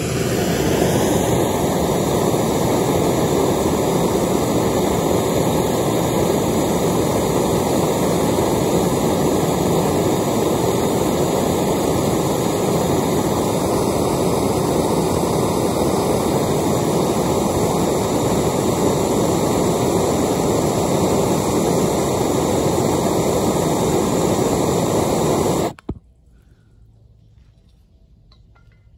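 Blowtorch flame running steadily and loud, a constant rushing noise, as it is played on a plastic LEGO tower to melt it. It cuts off suddenly near the end.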